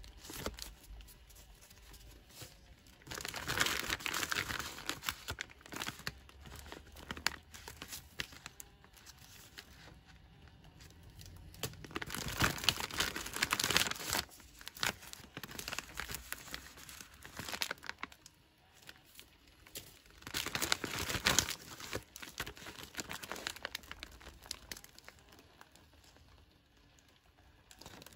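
MRE packaging crinkling and rustling as it is handled: a clear plastic bag and paper and foil ration packets. The handling noise comes in three louder spells, a few seconds in, near the middle and about two-thirds through, with quieter rustling between.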